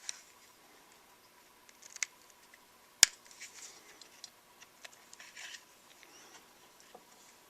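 Light clicks and scrapes of small plastic and metal parts being handled as a Flip camcorder is taken apart, with one sharp click about three seconds in as the loudest sound.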